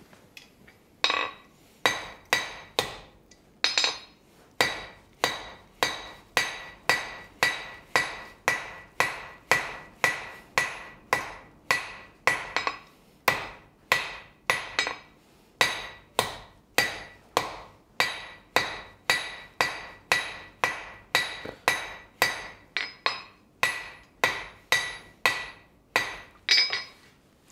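Hand hammer striking a red-hot steel bar on an anvil, drawing it out into a taper. The blows come at a steady rhythm of about two a second, each with a short metallic ring at the same pitch, and start about a second in.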